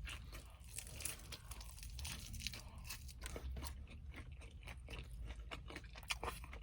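Crispy Korean fried chicken being crunched and chewed, with a close, irregular run of small crunches throughout.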